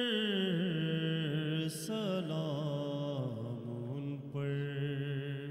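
A man singing a naat, an Urdu devotional poem in praise of the Prophet, solo into a microphone: one long drawn-out melismatic phrase with wavering ornaments that winds down in pitch and settles on a held low note near the end.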